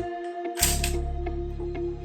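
Background music with a steady beat. The bass drops out briefly and comes back about half a second in with a sharp, noisy double hit.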